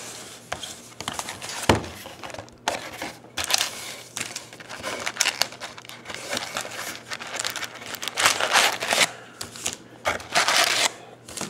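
Wrapped packs of Panini Contenders basketball cards crinkling and rustling as they are lifted out of the box and stacked, in irregular bursts with a few light taps.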